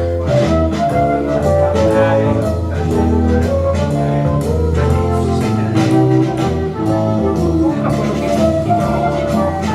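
Music played back over a hi-fi loudspeaker system: held chords over a low bass line, with regular percussive strokes.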